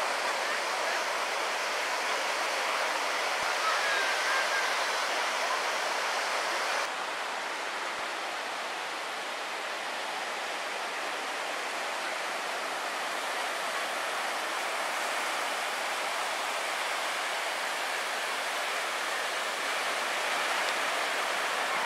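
Ocean surf breaking and washing up a beach: a steady rushing noise that drops a little in level about seven seconds in.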